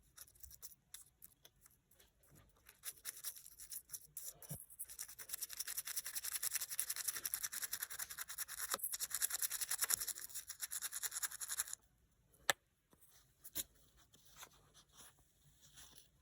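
A small brush scrubbing a dirty coin in rapid back-and-forth strokes. The scrubbing starts a couple of seconds in, stops suddenly near the end, and is followed by a few sharp clicks.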